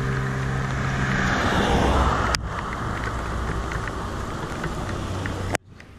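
Highway traffic: a vehicle swishes past about one to two seconds in, over a steady engine hum that stops about a second and a half in. The sound breaks off abruptly twice.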